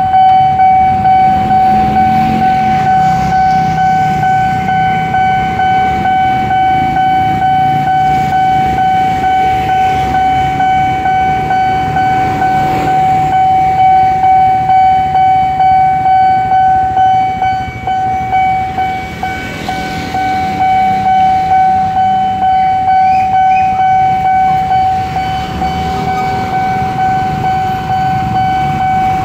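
Railway level-crossing warning bell ringing: one steady high ringing tone, struck about twice a second, with a low rumble underneath.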